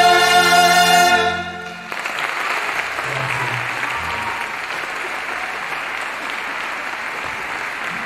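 Orchestra and choir hold the final chord of a song, cutting off about a second and a half in; the audience then applauds steadily.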